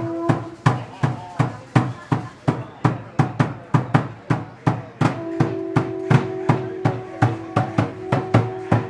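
A drum beaten in a steady, even rhythm of about three strokes a second, with a single held pitched note sounding over it from about five seconds in.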